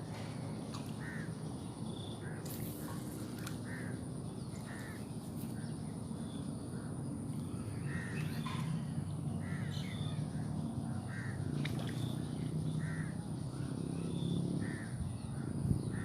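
A bird calling over and over in short, harsh calls about once a second, over a steady low rumble and a thin high whine.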